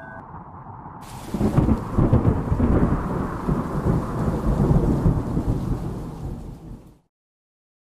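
Thunder sound effect: a rolling rumble with crackle that sets in suddenly about a second in, then fades away to silence about a second before the end.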